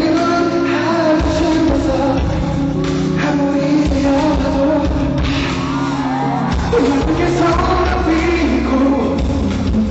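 Live pop music with a singer over an amplified band, recorded from the audience at a concert.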